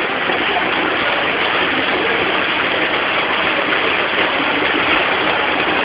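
A steady, loud rush of water with no distinct events: the sound of heavy rain and overflowing floodwater.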